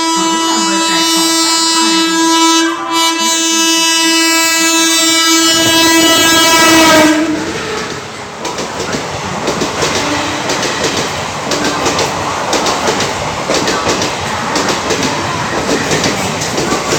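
WAG-7 electric locomotive's horn sounding one long blast, dipping slightly in pitch as it passes and cutting off about seven seconds in. Then the express train's wheels clatter rapidly over the rail joints, a fast clickety-clack over a steady rush.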